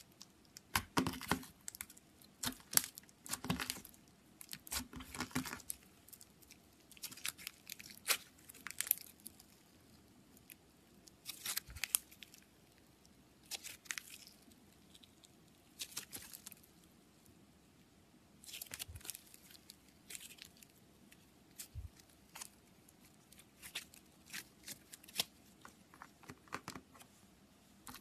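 Slime being worked by hand, squeezed and stretched: short bursts of sticky crackling and popping every second or two, with brief pauses between.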